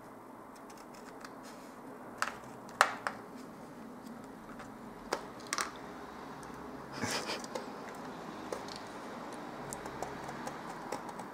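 Scissors cutting through a laminated plastic sheet: a series of short, sharp snips at irregular intervals, the loudest about three seconds in, with a small cluster of crackly snips about seven seconds in.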